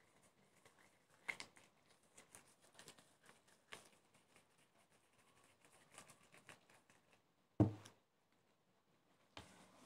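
Faint rustling and light clicks of gloved hands rolling a ball of dough in desiccated coconut, with one louder thump about three-quarters of the way through.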